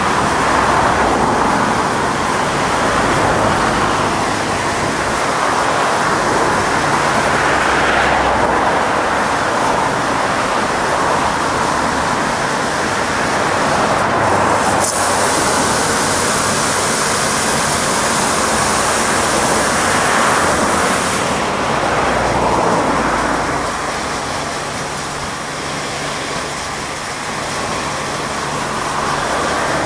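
Aquarama Stargate S111 R car wash gantry running over a car, with a steady machine hum and water spraying. About 15 seconds in, a higher hiss cuts in suddenly and stops just as suddenly about six seconds later.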